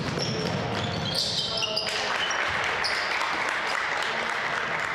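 Basketball game sounds in a gym: a ball bouncing on the court and sneakers squeaking. From about two seconds in there is a steady rushing noise.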